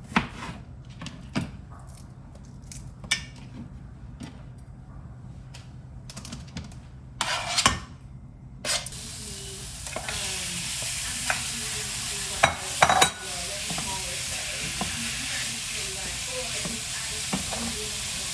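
Kitchen cooking sounds: scattered clinks and knocks of utensils and dishes, then from about nine seconds in a steady sizzle of food frying in a pan, with more clinks over it.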